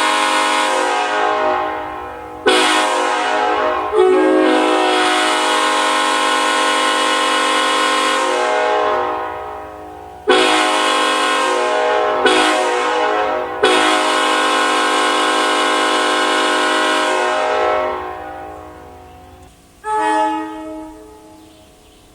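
Nathan Airchime K5LLA five-chime locomotive horn blowing a series of blasts on compressed air. Each blast starts sharply as a loud steady chord; the two longest run about four to five seconds and tail off slowly. A short toot comes near the end.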